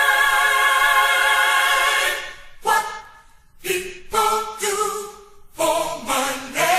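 Choir singing a held chord a cappella, then breaking into a series of short, separate choral stabs with brief gaps between them.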